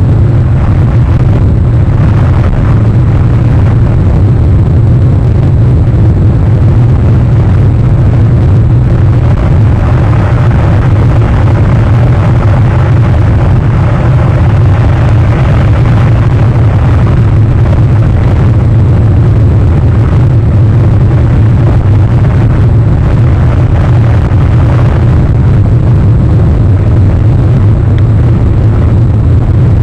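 Steady, loud low rumble of wind on an outdoor nest camera's microphone, with an even hiss above it.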